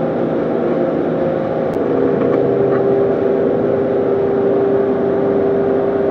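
Walk-in freezer's evaporator fan unit running: a steady hum with a constant tone. A faint tick a little under two seconds in.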